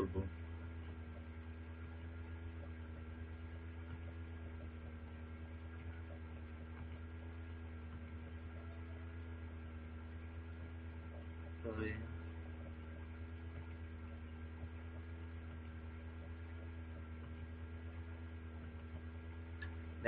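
Steady low electrical hum, with several faint steady higher tones above it. A brief short sound breaks in once, near the middle.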